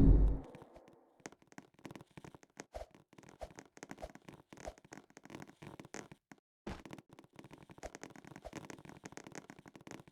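The tail of a loud blast-like noise dies away in the first half second, followed by faint, scattered clicks and short rustles.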